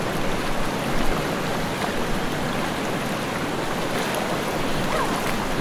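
Swift river current rushing steadily.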